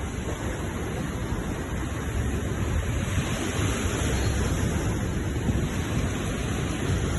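Sea waves washing on the shore: a continuous rush of surf that swells a little louder about two seconds in.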